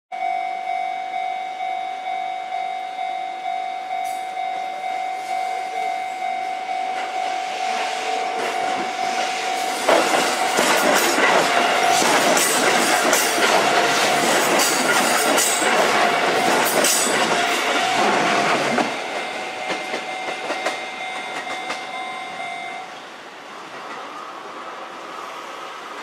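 A Japanese level-crossing warning bell dings about twice a second. About ten seconds in, a Sanyo Electric Railway 6000-series three-car electric train passes close by, its wheels clattering loudly over the rail joints for about nine seconds. The bell keeps ringing a few seconds after the train has gone, then stops.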